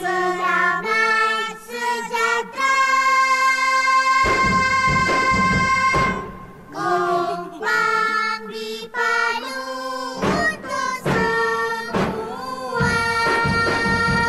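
Children singing together with kompang hand drums: held sung notes alternate with sharp drum strikes between phrases.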